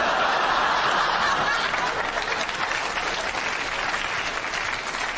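Studio audience applauding and laughing, breaking out suddenly and slowly dying away.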